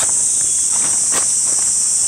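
Steady, high-pitched chorus of insects, with a few footsteps on the leaf-littered forest floor, one clearer step about a second in.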